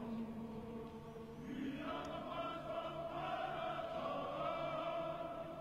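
A choir of many voices singing together in long, held notes, growing fuller about two seconds in.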